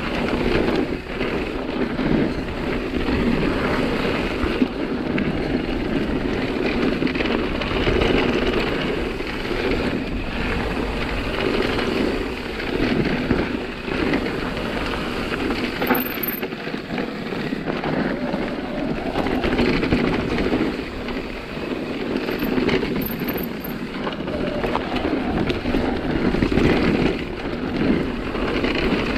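Wind rushing over the camera microphone while a Nukeproof Megawatt e-mountain bike descends a dirt trail, its tyres rolling over the ground and the bike knocking and rattling over bumps.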